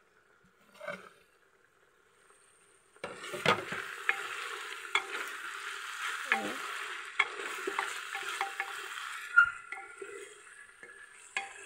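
Grated carrots and onions frying in hot oil in an aluminium pressure cooker, sizzling while being stirred with a spatula that scrapes and knocks against the metal pot. The sizzling starts suddenly about three seconds in and dies down near the end, with the loudest knock just before it fades.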